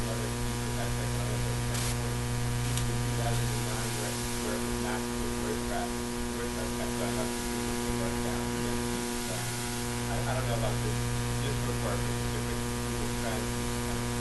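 Steady electrical mains hum with its evenly spaced overtones, with a faint, distant voice of an audience member asking a question away from the microphone.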